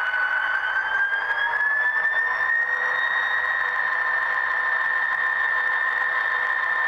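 Sound-equipped HO scale model of an EMD SD40-2 diesel locomotive playing its engine sound through a small onboard speaker: a high whine rises in pitch over the first couple of seconds as the locomotive moves off, then holds steady over a hiss.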